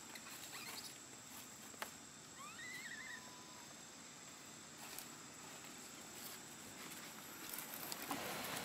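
Quiet leaf-litter ambience with a few dry crackles and one short warbling chirp about two and a half seconds in. Rustling on the dry leaves grows louder near the end as the macaques move.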